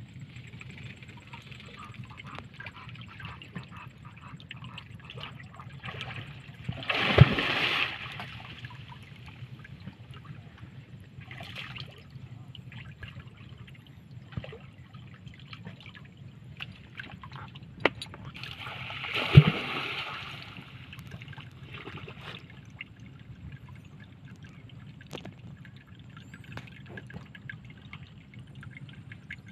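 Water splashing and trickling around a man wading waist-deep through water hyacinth while fishing by hand, with two louder splashes, one about seven seconds in and one near twenty seconds.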